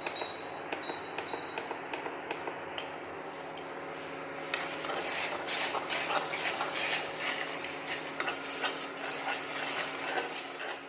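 Spatula scraping and tapping against a kadai as egg bhurji (onion and tomato scrambled egg) is stirred while frying in ghee; scattered knocks at first, then about halfway through a denser run of scraping with a sizzle.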